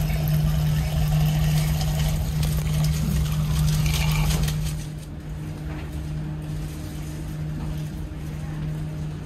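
Hot water running from a dispenser spout into a cup of instant noodles, over the steady low hum of a passenger ship's engines. The pouring stops about five seconds in, leaving only the ship's drone.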